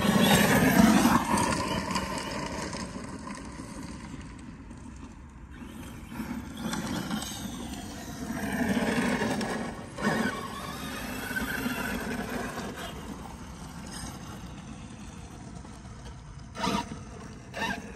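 Brushless electric motor of a 6S RC monster truck whining as it accelerates away over gravel, rising and falling in pitch, then surging and easing off several times as it drives in the distance. Two sharp knocks near the end.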